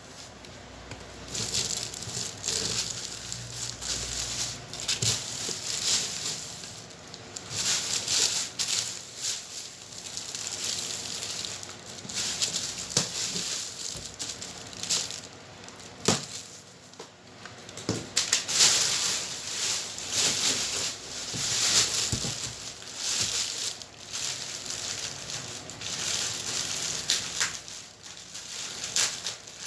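Packaging of an 18-inch speaker driver being opened and handled: irregular crinkling, rustling and tearing, with scattered sharp knocks.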